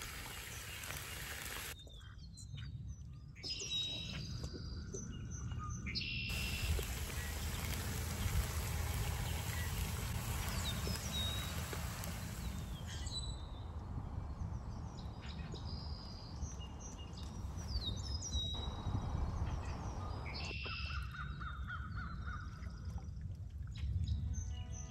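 Wild birds chirping and calling over a steady low rush, with one longer, harsher call a little before the end.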